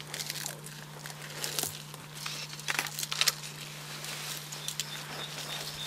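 Leaves and stems of dense undergrowth rustling and crackling, with a cluster of sharper snaps a little before halfway through. A steady low hum runs underneath.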